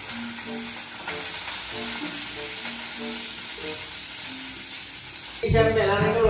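Food frying in a pan, a steady sizzling hiss, with faint background music of single soft notes. About five and a half seconds in, much louder music takes over.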